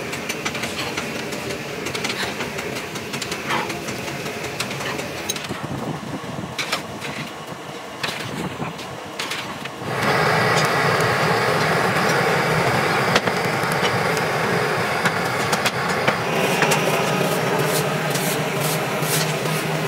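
Scattered knocks and clatter of cast metal discs being handled into a foundry oven's racks. About halfway through, a steady, louder rush of fire burning inside the oven starts and keeps on.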